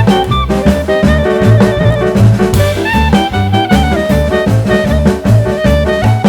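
Upbeat jazz-style background music with drums, a walking bass and a melody line.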